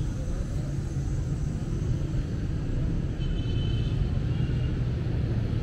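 Steady low rumble of city street traffic passing on the road beside the sidewalk.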